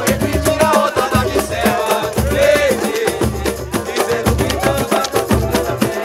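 Live samba from a small roda: a cavaquinho strumming over hand drums and a cymbal keeping a dense, steady beat, with voices singing over it.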